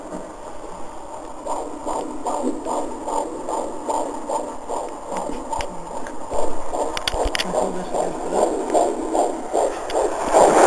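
Fetal heartbeat picked up by a Doppler ultrasound, a steady run of whooshing beats about two a second, in keeping with a fetal heart rate of about 133 beats a minute. The beats grow louder from about six seconds in.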